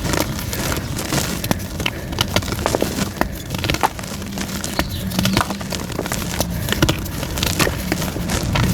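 Soft white gym chalk being crushed and crumbled close to the microphone: dense, irregular crackles and small crunches over a steady low rumble.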